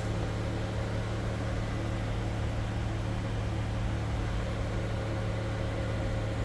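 A steady low mechanical hum with a light hiss, even throughout.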